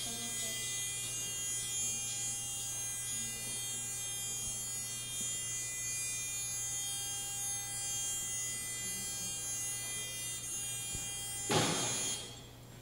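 Electric order-picker lift's motor running with a steady whine and low hum. It stops with a thump about eleven and a half seconds in.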